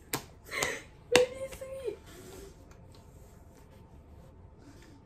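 Two sharp clicks with a short breathy burst between them, then a girl's brief held voiced sound that falls in pitch at its end, all within the first two seconds. The rest is quiet room tone.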